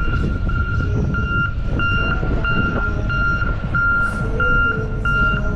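Reversing alarm of a snow-clearing vehicle: one steady-pitched beep repeating at an even, quick pace. A heavy low rumble of engine and street noise runs underneath.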